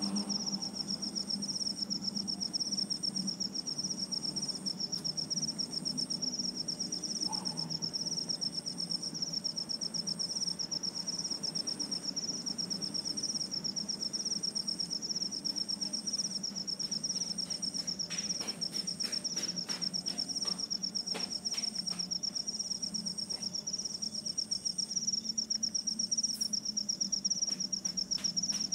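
Insects trilling steadily in a high, unbroken tone, with a second, still higher insect call that repeats on and off about once every second and a bit. A low hum runs underneath, and a few faint clicks come about two-thirds of the way through.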